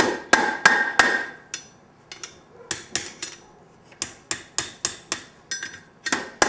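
Blacksmith's hand hammer striking a chain link's scarfed ends against the anvil, driving one scarf past the other to overlap them for a forge weld. About twenty blows come in quick groups with short pauses, each blow ringing briefly.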